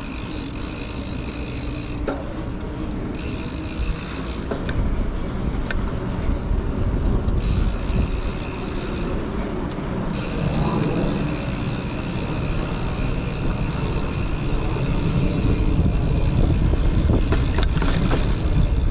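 Mountain bike rolling along concrete paving, with wind rumbling on the microphone. A high, even buzz from the rear freewheel hub cuts in and out several times as the rider coasts and pedals, with a few light knocks over the slab joints.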